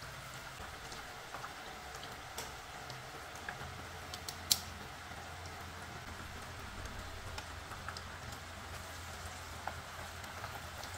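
Battered banana fritters deep-frying in hot oil in a wok: a steady sizzle with many small crackling pops. About four and a half seconds in there is one sharp click.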